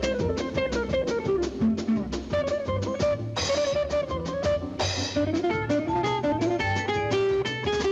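Upbeat cartoon score with plucked guitar, bass and a drum kit playing a jazzy, bluesy tune, with two brief swooshes near the middle.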